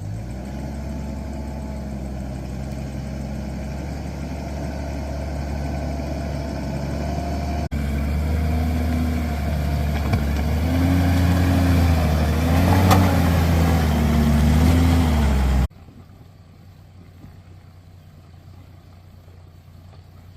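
Four-wheel-drive vehicle's engine running at low revs while driving slowly, the revs rising and falling several times in the second half. About 15 seconds in the engine sound cuts off suddenly, leaving only a quiet low background.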